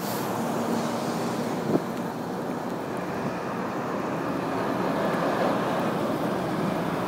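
Steady noise of a motor vehicle running, with one brief knock a little under two seconds in.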